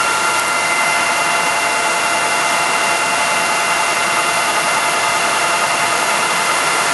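Steady whine of running shop machinery: a constant hiss with several high steady tones layered over it, unchanging throughout.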